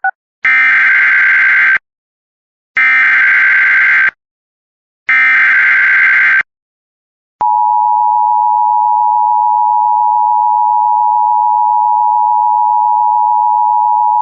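Emergency Alert System SAME header: three buzzy bursts of digital data tones about a second apart, each just over a second long, encoding a flash flood warning. About a second after the third burst, the steady two-tone EAS attention signal starts.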